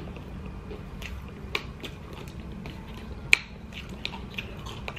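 Scattered sharp clicks and crackles from a plastic Aquafina water bottle being gripped and lifted to drink from, the loudest a little past three seconds in, over faint mouth sounds.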